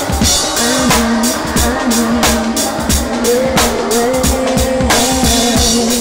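Live band music with a steady drum-kit beat, a bass line and held melodic notes.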